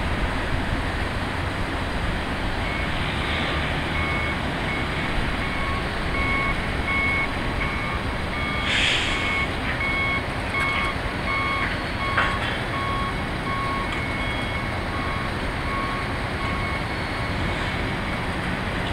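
Backup alarm on a John Deere Swing Loader beeping repeatedly as the machine reverses, over a steady rumble of engine and wind noise. The beeping starts about three seconds in and stops shortly before the end, with a brief hiss around the middle.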